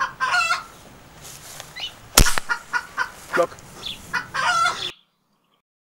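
A single shot from a .177 Walther Rotex RM8 air rifle about two seconds in, a sharp crack. Chickens cluck repeatedly around it, and everything cuts off abruptly about a second before the end.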